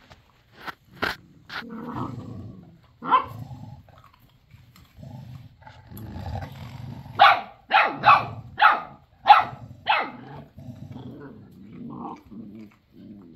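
Great Pyrenees puppies play-fighting, growling low with a few sharp yelps early on. About halfway through comes a run of about seven short, high yaps, roughly two a second.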